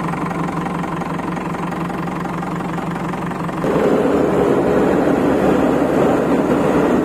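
Manitou TLB 740S backhoe loader's diesel engine running steadily at its 650 rpm idle while the loader arm lifts. About three and a half seconds in it is throttled up to 2200 rpm and runs noticeably louder as the loader keeps lifting.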